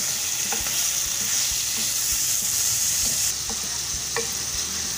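Minced meat (keema) and onions sizzling in hot oil in a non-stick pan, stirred with a wooden spatula that taps and scrapes against the pan a few times.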